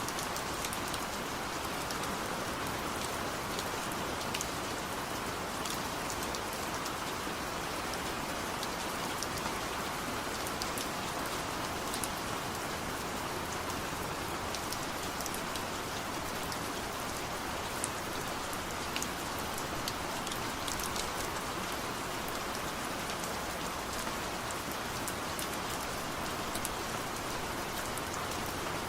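Steady rain falling, an even hiss with scattered individual drop ticks throughout.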